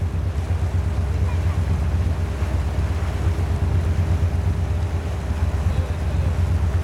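Wind buffeting the microphone: a steady, fluttering low rumble that covers everything else, with a faint steady hum underneath.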